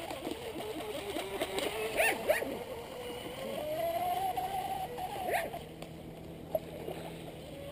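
Small RC boat with a Leo 2845 3540 kV brushless motor on a 2S pack turning a 32 mm two-blade aluminium prop, running fast over the water. Its motor whine wavers, rising in pitch around the middle and falling again, with splashing and a few sharp slaps from the hull.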